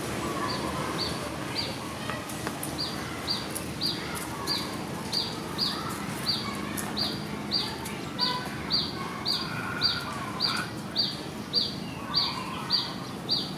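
An animal's short, high chirp, slightly falling in pitch, repeated at a steady pace of about one and a half a second from about half a second in.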